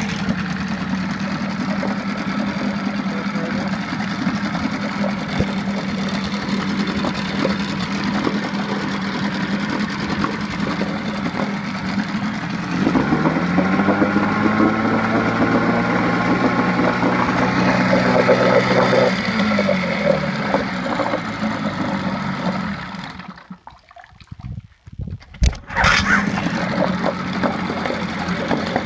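1984 Mercury 9.8 hp two-cylinder two-stroke outboard motor running. It is revved up about halfway through, held for several seconds, then eased back to a steady run. Near the end the sound cuts out for about two seconds and comes back with a sudden burst as the motor runs again.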